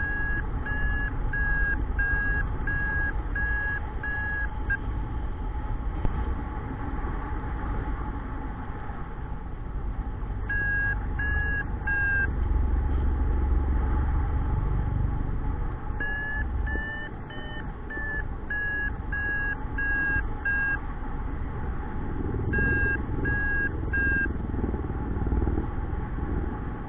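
Paragliding variometer beeping in short, regular pulses, about one and a half a second, in four bursts with pauses between them. Its pitch rises a little in the third burst. This is the climb tone, the sign that the glider is going up in lift. Wind rushes over the microphone underneath.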